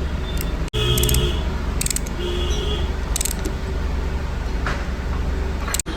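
Hand tools clinking and ratcheting on metal engine parts, with a few short metallic rings, over a steady low hum. The sound cuts out for an instant twice.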